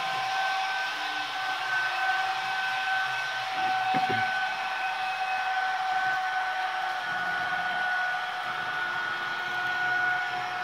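H0 model of an ÖBB class 1116 Taurus electric locomotive running with a Nusser sound decoder: a steady electric whine over a rushing hiss, its pitch sinking slightly.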